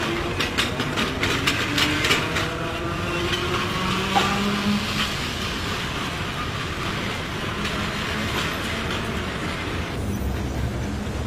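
Tram running on its rails, the wheels clicking over rail joints over a steady rumble. The clicks come thick and fast for the first few seconds, then thin out.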